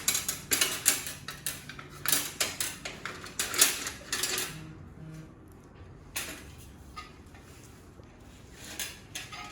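Metal clinking and clattering of hand tools against bicycle parts during disassembly: a quick run of knocks and clanks in the first half, then a few scattered clicks.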